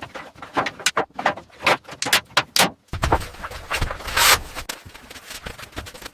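Irregular clatter of sharp knocks and clicks in quick succession, with the loudest about four seconds in.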